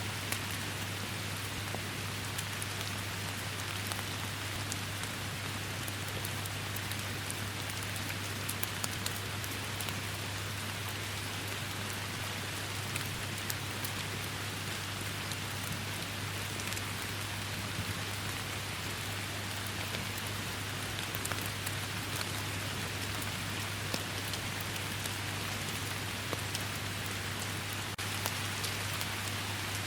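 Steady, even rain falling, with many small individual drop hits ticking through it, over a constant low hum.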